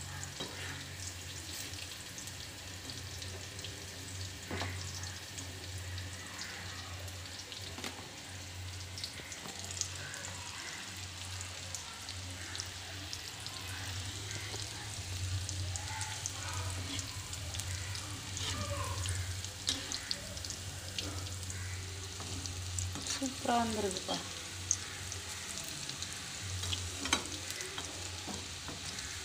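Batter-coated mushroom pieces deep-frying in hot oil: a steady sizzle full of small crackling pops, with a metal spatula stirring through the pan now and then.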